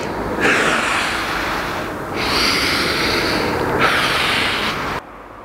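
A man breathing hard through the mouth in long, noisy breaths of about a second and a half each, under effort while holding an abdominal hollow body position. The sound cuts off abruptly near the end.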